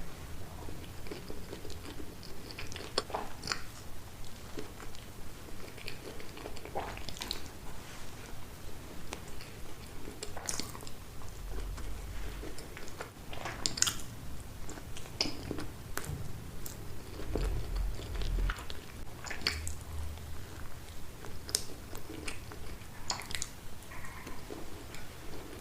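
Close-miked chewing and biting of chilli cheese dogs: a steady run of short, irregular wet mouth clicks and occasional crunchy bites.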